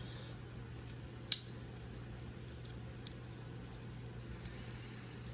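Faint metallic clicks of a Victorinox Tinker Swiss Army knife being handled, with one sharp click about a second in, over a steady low hum.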